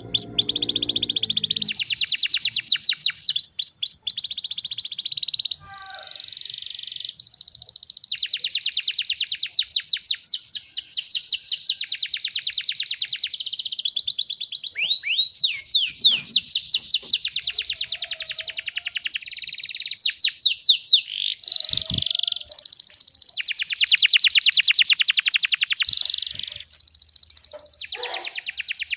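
Domestic canary singing long runs of rapid, tightly packed trills, the fast repeated notes canary keepers call 'tembakan rapat', with a short pause about six seconds in.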